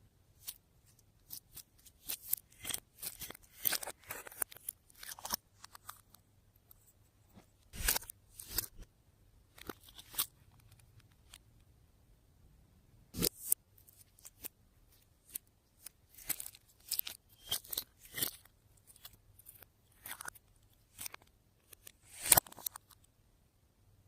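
Hands kneading and pressing slime, giving irregular sticky clicks, crackles and pops in short clusters with quiet gaps between.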